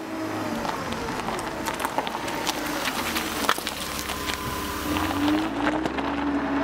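A motor vehicle's engine running, with scattered clicks over a steady hum; its pitch climbs a little about five seconds in and then holds.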